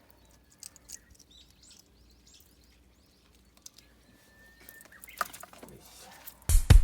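Faint outdoor ambience with faint bird chirps and scattered small clicks, then background music with a beat starts loudly near the end.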